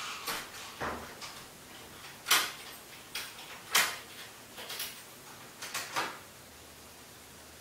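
Irregular knocks and clicks of objects being handled in a room, about ten of them over six seconds, the loudest about two and a half and four seconds in.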